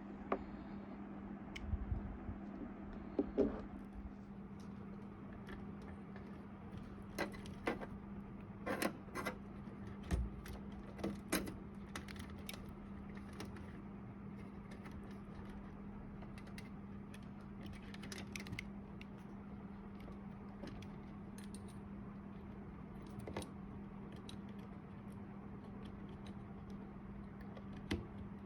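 Small metal computer parts being handled, giving scattered light clicks and metallic taps, most of them in the first half, over a steady low hum.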